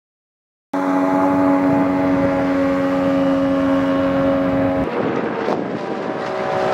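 Tohatsu 50/35 two-stroke jet outboard on a loaded PROJET 470 inflatable jet boat running at speed on step, with the engine's steady, strongly pitched note and water spray noise. The sound cuts in suddenly under a second in, and its note shifts lower a little before five seconds in as the boat passes and moves away.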